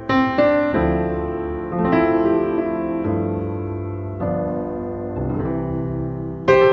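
Slow piano chords played on a keyboard, a new chord struck every second or so and left to ring and fade, with a louder chord struck near the end.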